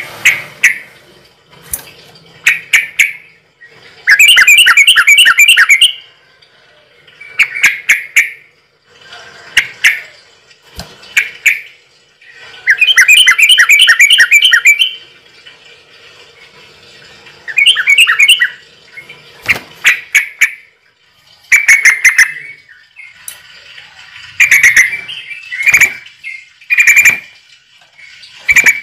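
Bird calling close by: loud, sharp chirps repeated throughout, broken by rapid trills lasting about two seconds each, at about four and thirteen seconds in, and a shorter one near eighteen seconds.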